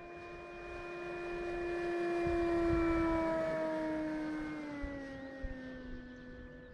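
Electric motor and propeller of an E-flite Carbon-Z Cessna 150T radio-controlled plane making a low pass. The steady whine grows louder, peaks about three seconds in, then drops in pitch as the plane goes by and fades a little.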